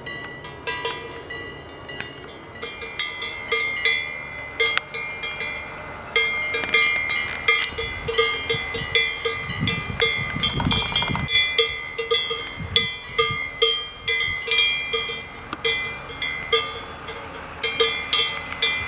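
Cowbell on a grazing cow's collar clanking irregularly, about two strikes a second, each leaving a ringing tone. A brief low rumble comes about halfway through.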